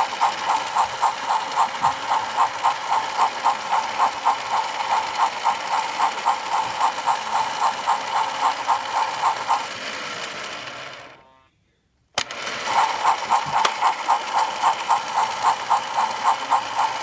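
Toy train playset's electronic chugging sound effect, an even rhythm of about three chuffs a second. It fades out about ten seconds in, goes silent, then starts again abruptly.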